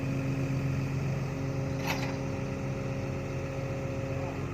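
Heavy diesel engine running steadily at an even speed, with one sharp click about two seconds in.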